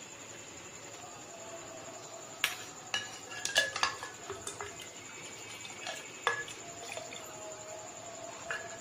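Plastic spoon stirring custard powder into cold milk in a glass jug, clinking and knocking against the glass in a quick cluster a couple of seconds in, then a few single taps later.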